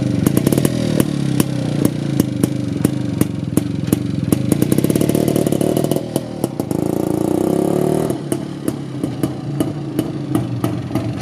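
IZh-49 motorcycle's single-cylinder two-stroke engine running on its VAPE electronic ignition, with a rapid, even popping beat. The revs rise and fall in the middle as it pulls away, and it sounds quieter and lower from about eight seconds in.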